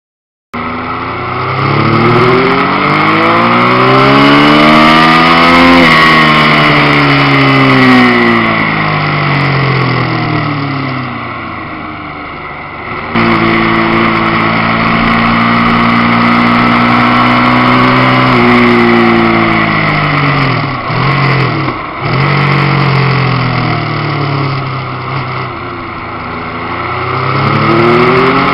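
Racing motorcycle engine under hard riding, revving up and easing off again and again through the corners, with a steady rush of wind over the microphone. The engine note jumps abruptly about halfway, and it drops off sharply twice a little later as the throttle is closed.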